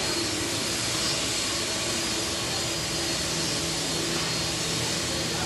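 Jet airliner's engines running with a steady rush of noise and a few faint steady hums over it.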